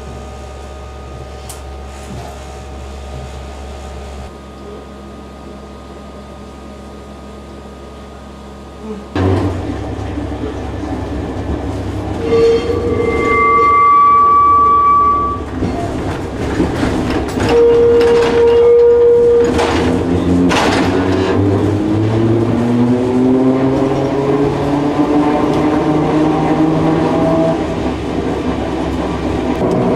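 Historic tram heard from inside the car: a low steady hum at first, then about nine seconds in the sound jumps to the car running on the rails, with rumbling and clicks of the wheels. Two held high-pitched tones sound in the middle, and in the second half the traction motors whine and rise in pitch in steps as the tram gathers speed.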